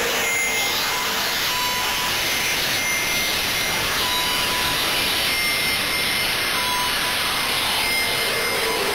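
Background music: an electronic track made of steady hissing noise, with a short high beep about once a second.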